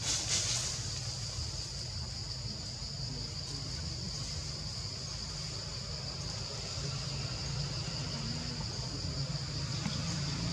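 Steady high-pitched insect drone in the forest canopy, with a low rumbling hum underneath and a brief louder rush at the very start.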